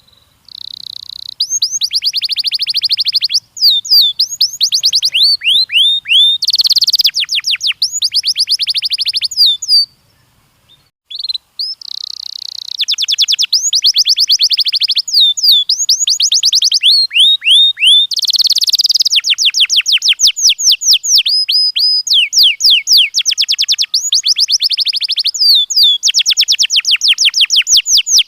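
Domestic canary singing in rapid trills and runs of repeated sweeping notes, phrase after phrase, with a break of about a second and a half near the middle.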